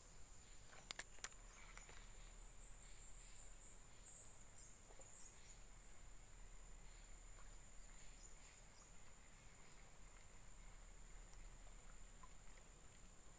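Insects chirring steadily and faintly at a high pitch, with a faint high chirp repeating throughout. About a second in there are a couple of sharp clicks from the fishing rod and reel being handled during a cast.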